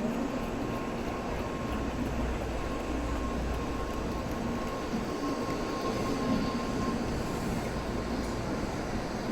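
Shinkansen bullet train pulling out of the station, a steady rumble with a faint whine that fades out near the end.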